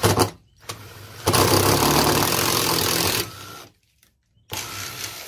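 Milwaukee cordless impact driver, fitted with a 5/16-inch drill bit, drilling a hole through painted wood. A short burst at the start is followed by about two seconds of steady drilling, then the tool stops briefly and runs again near the end.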